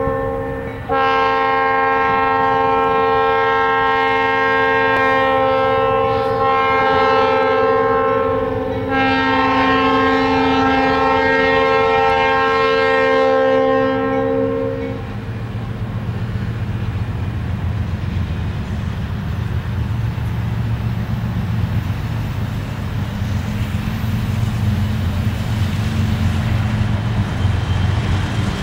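Norfolk Southern diesel locomotive sounding its multi-chime air horn in long blasts, a loud steady chord, for about the first fifteen seconds. The horn then stops and a low rumble grows as the train approaches.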